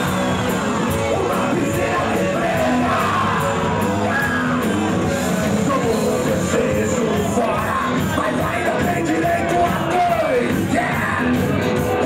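Rock band playing live, with the singer's voice carrying the lyrics in Portuguese over the full band.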